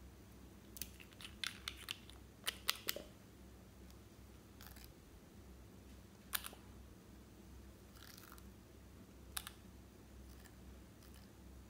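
Small sharp clicks and taps of a glass nail polish bottle and its screw cap with attached brush: a quick cluster as the cap is worked open, then single clicks every couple of seconds as the brush cap knocks against the bottle neck.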